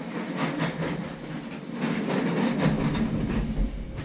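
Irregular rustling and knocking of people moving about a room and handling things, with a low rumble coming in about three seconds in.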